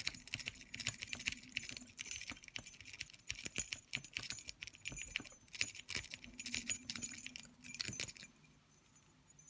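Sparrows Snake lock-pick rake worked rapidly in and out of a 40 mm Brinks padlock's keyway under light tension: quick metallic scraping and clicking of the rake over the pins. It stops about a second before the end, just ahead of the lock opening.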